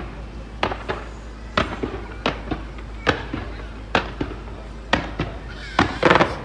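Fireworks going off in a display: sharp bangs about once a second, with a burst of denser crackling near the end.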